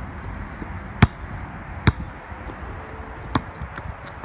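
Basketball bouncing on an asphalt court: three single, sharp bounces spread over a few seconds.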